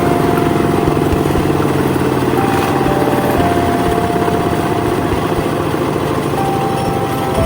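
Small engine of a rice harvesting machine running steadily at an even speed.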